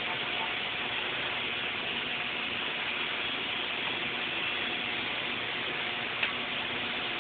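Stick-welding arc burning an E7018 electrode, a steady crackling hiss, with one sharp pop about six seconds in.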